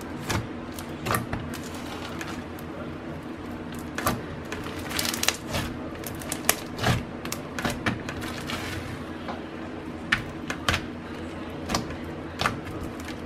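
Hand squishing, squeezing and poking a lump of clear blue slime, making irregular sticky pops and clicks that are busiest in the middle.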